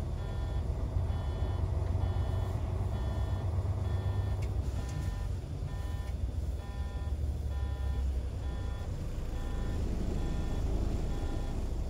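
Mercedes-Benz Travego coach's hazard-light indicator beeper sounding in an even rhythm of short electronic beeps, over the low drone of the coach's running engine.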